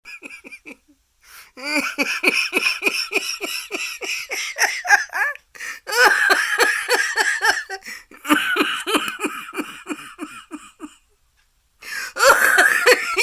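A woman with a cold laughing hard in several long fits, each a run of quick pulses about four a second, with short breaks between the fits.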